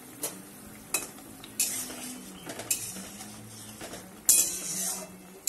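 A spatula stirring and scraping in a metal kadai of raw mango slices simmering in water, with sharp clinks against the pan over a bubbling sizzle. The loudest scrape comes about four seconds in.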